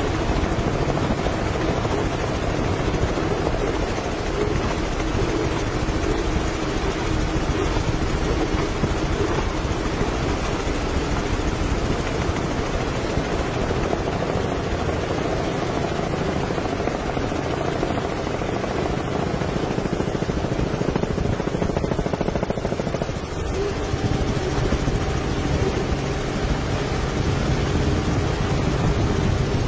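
Bank of outboard motors on a Cigarette powerboat running steadily at high speed. The engine note shifts about three-quarters of the way through.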